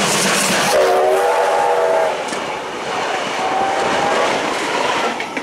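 A train of red Tait carriages passing at close range, with steady wheel and rail noise. A multi-note whistle sounds for about a second, starting just under a second in.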